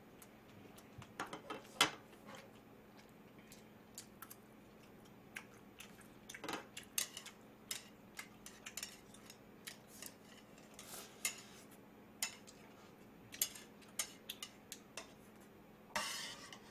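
Metal chopsticks clinking and scraping against a plate and a metal pot of ramyeon, in scattered light taps, with a short rustling stretch near the end as noodles are lifted from the pot.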